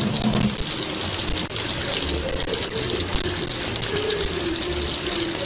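Kitchen faucet running a thin, steady stream of water into a sink, a continuous splashing hiss.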